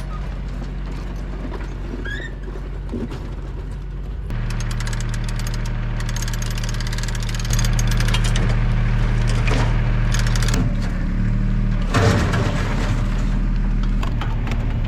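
ATV (4-wheeler) engine running steadily, its revs and loudness stepping up about four seconds in and again a few seconds later.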